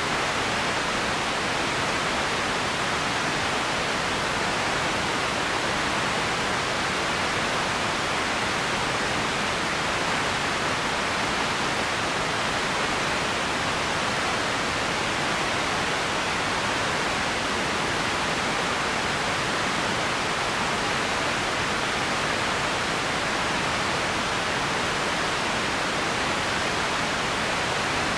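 Steady, unchanging hiss of noise with no separate events, strongest in the middle of the range: an empty-ambience room-tone track.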